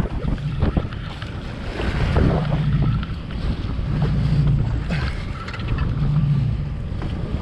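Jet ski engine running at trolling speed, its low hum rising and easing several times, under heavy wind buffeting on the microphone and waves slapping against the hull.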